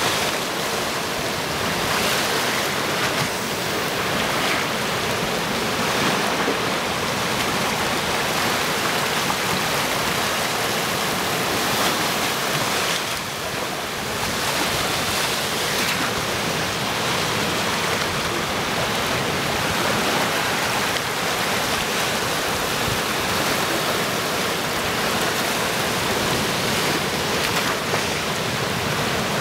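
Sea surf washing in among large boulders on a rocky shore: a steady rush of moving water with waves splashing against the rocks, easing briefly about halfway through. Near the end a wave breaks against a boulder and throws up spray.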